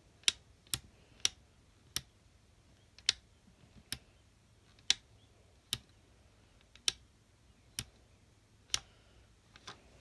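Sharp ticks about once a second from a Faraday UMMT horn/strobe running strobe-only: the click of each strobe flash, with no horn sounding.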